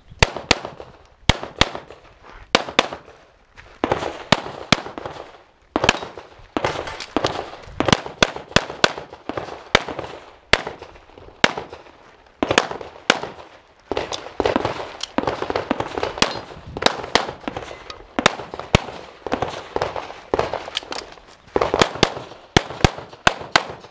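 Pistol gunfire on a practical shooting stage: rapid shots, mostly in quick pairs and short strings with brief pauses between, each shot trailing a short echo.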